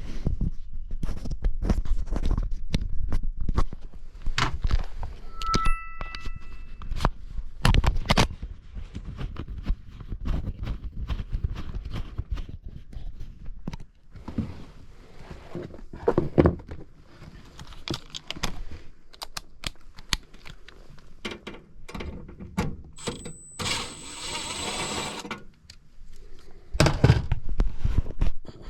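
Hand tools and sheet-metal furnace parts clattering while the flame sensor of a gas furnace is being taken off for repositioning: irregular knocks, clicks and thunks, with a short metallic ping about six seconds in. A few seconds before the end comes a noisy burst of about two seconds with a high whine over it.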